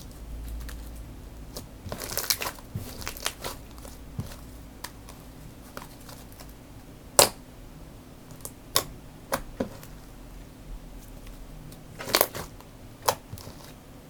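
Homemade slime being handled, poked and squished by hand, giving scattered small crackles and pops, with a cluster of them about two seconds in and a few sharper clicks later.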